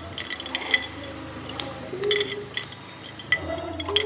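Hard ice cubes clinking and cracking, with a scatter of sharp, irregular clinks that ring briefly.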